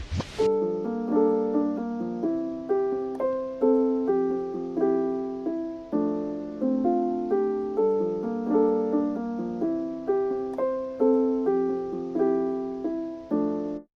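Background music: a piano melody of short notes that strike and fade, about two or three a second, stopping abruptly just before the end.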